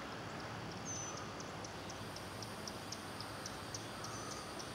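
Quiet outdoor ambience with a thin, very high chirping that repeats about four times a second from about a second in, opening with a short whistled note.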